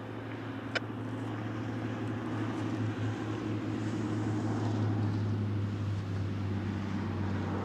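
A road vehicle passing, its noise building to a peak about five seconds in and easing off a little, over a steady low hum.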